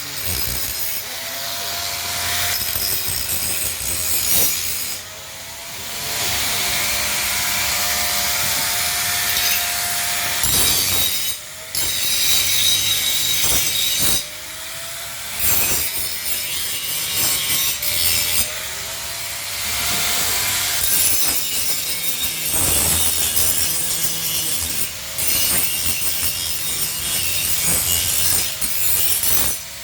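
Hand-held angle grinder working on steel with a hissing, grating sound, its motor pitch rising and falling under load, in several passes separated by short breaks.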